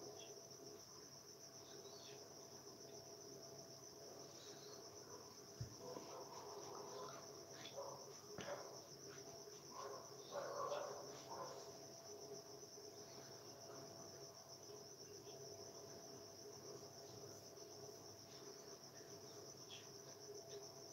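Faint, steady insect chirring with a fine, even pulse, with a few soft irregular sounds in the middle stretch.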